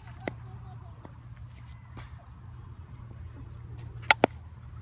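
A bat hitting a pitched softball just after four seconds in: a sharp crack followed a moment later by a second quick click, over a steady low background rumble.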